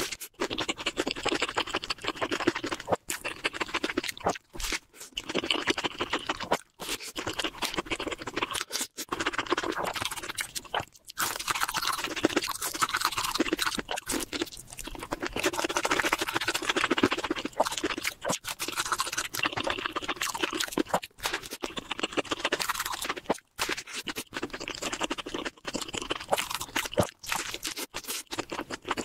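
Close-miked eating of a burger and crispy fried chicken nuggets: continuous wet chewing and crunching, broken by several brief silent gaps.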